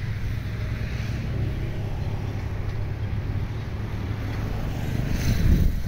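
Steady low engine drone, like a distant diesel engine running, with wind buffeting the microphone near the end.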